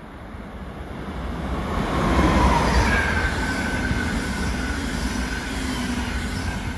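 ÖBB electric locomotive and CityShuttle double-deck coaches passing close along the platform track. The wheels rumble on the rails, growing loudest a couple of seconds in, with whining tones that fall in pitch as the train goes by.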